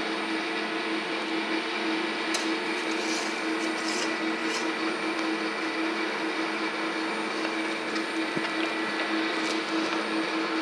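Monarch metal lathe running: a steady electric motor hum with a few constant tones, and a few faint clicks as bar stock is set into the collet and the collet-closer handwheel is turned.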